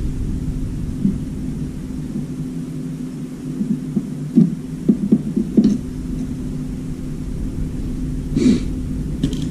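A steady low hum throughout. Over it, a quick run of knocks and clatters about halfway through and one more near the end, as the plastic washing-machine door frame and glass bowl are handled and pried at.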